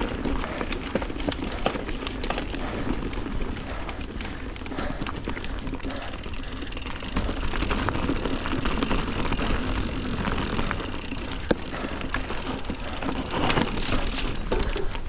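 Mountain bike riding over rocky trail: steady wind rumble on the microphone under tyre noise, with the bike rattling and clicking as it bounces over embedded rocks.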